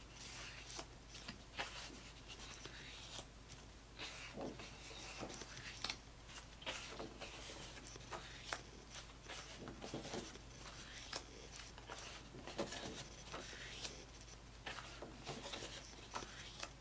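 Stiff fiber-based double-weight photographic prints being leafed through by hand: irregular papery slides, flicks and rustles as each print is drawn off the stack.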